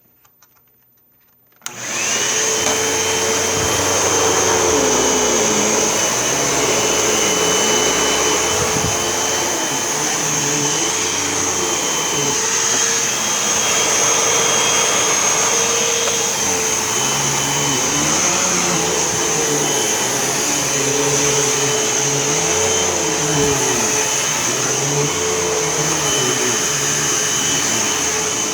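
Hoover Elite Whole House upright vacuum cleaner switched on about two seconds in, then running steadily with a high whine while vacuuming carpet, its lower tone wavering as it is worked over the floor.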